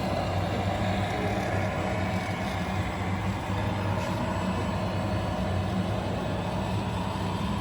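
Radio-controlled model truck running, a steady truck-engine hum with a wavering higher whine over it.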